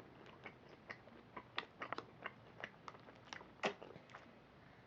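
A child chewing and biting into a chocolate sweet, with irregular small crunches and wet mouth clicks, one louder crunch about three-quarters of the way through.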